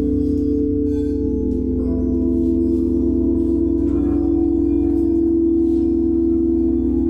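Singing bowls and gongs ringing in sustained, overlapping tones over a steady low hum, with new higher tones entering about two seconds in and again around four seconds.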